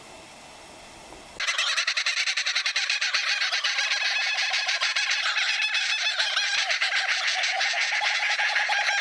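A group of laughing kookaburras calling together in a loud chorus of rapid, cackling laughter, which starts suddenly about a second and a half in after a faint, quiet stretch.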